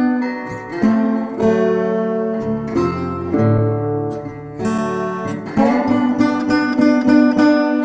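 Western-style guitar music: an acoustic guitar plucked and strummed, chords changing every second or so.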